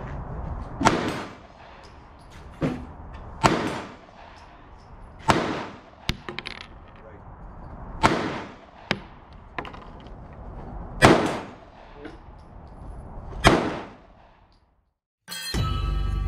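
Six handgun shots fired singly, about two and a half seconds apart, with fainter sharp cracks between them. Near the end there is a moment of silence, then loud music starts.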